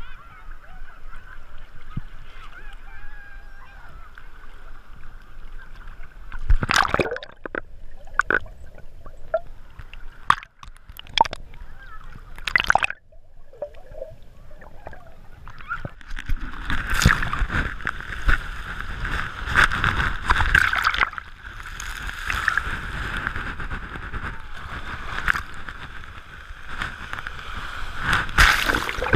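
Sea water sloshing and splashing around a waterproof action camera at the surface, muffled by its housing, with several sharp splashes in the first half. From about halfway, louder continuous surf as small waves break over the camera at the shoreline.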